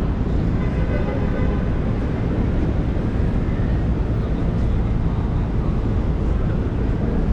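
Busy city street ambience: a steady low rumble of traffic with faint voices of passers-by.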